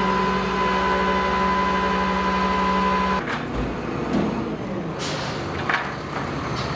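A vehicle engine running with a steady whine over a fast low pulsing, cutting off abruptly about three seconds in, followed by a low thump and a sharp click.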